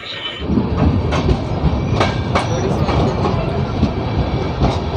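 Passenger train running on the rails: a steady low rumble with irregular clacks of wheels over rail joints. The rumble comes in abruptly about half a second in.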